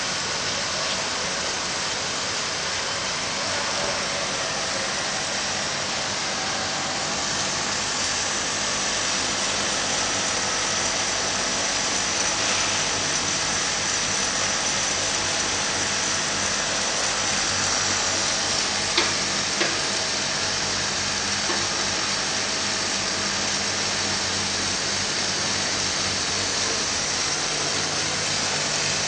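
Automatic carpet overlock machine running as it serges a carpet edge with binding tape: a steady mechanical whir over a low motor hum. A thin high whine runs through the middle, and two short clicks come about two-thirds of the way through.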